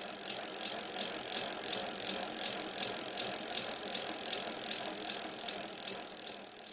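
Bicycle sound effect: a steady hiss with regular light ticking, about three ticks a second, like a wheel spinning.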